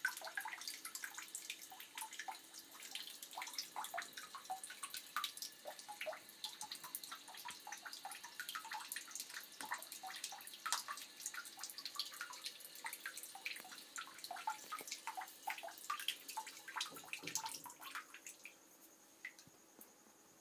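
Water running and splashing into a bathtub: a rapid, irregular run of drops that thins out and stops about eighteen seconds in.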